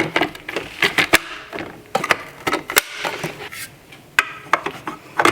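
Vacuum cleaner attachments (dusting brush, crevice tool and floor tool) being handled and snapped into the holder on the cordless vacuum's charging station: a string of irregular sharp clicks and knocks, about eight or nine in all.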